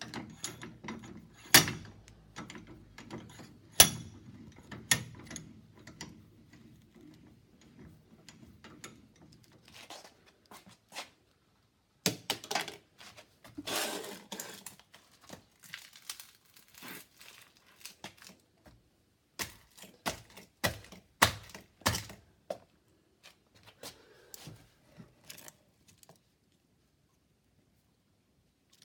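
Mobile phone cracking and crunching as it is crushed in a press: irregular sharp snaps and crackling clusters of breaking screen and casing, the loudest cracks about 2 and 4 seconds in, with further bursts around the middle, stopping a few seconds before the end.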